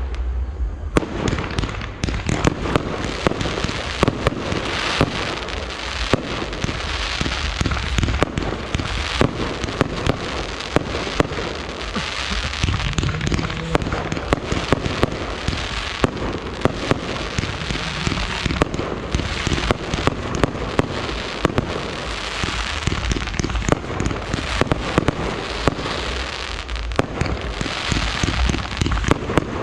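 Fireworks display: a dense, continuous run of bangs and crackling from exploding shells.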